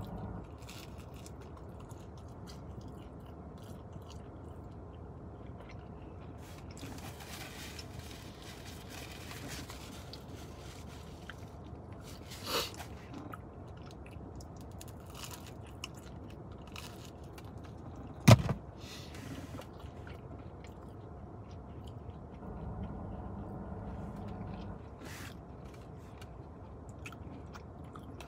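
Close-up chewing and biting of pizza, with faint crunching. A sharp knock about two-thirds of the way through is the loudest sound, with a smaller click a little before it.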